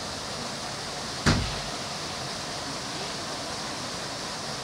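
Steady background hiss with one sharp knock about a second in, the loudest sound, followed by a brief low rumble.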